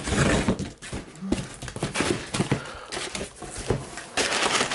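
Scissors cutting through packing tape on a cardboard box and the flaps being pulled open: an irregular run of clicks, scrapes and rustles. Near the end, kraft packing paper inside the box crinkles as a hand pushes into it.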